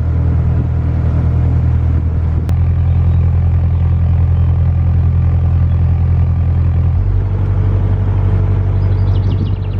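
Narrowboat's diesel engine running steadily under way, a low throb whose tone shifts abruptly twice.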